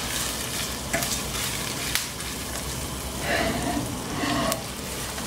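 Arborio rice toasting in hot butter with onion in a stainless pot: a steady sizzle while a silicone spatula stirs and scrapes the grains, with a couple of light ticks. A short hum-like tone comes in about three seconds in and stops about a second later.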